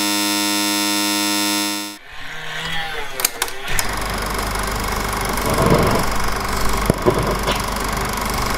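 A steady tone of many pitches at once for about two seconds, then a few sharp clicks and clunks as an Akai reel-to-reel tape deck starts. The deck then runs steadily with hiss and a low hum.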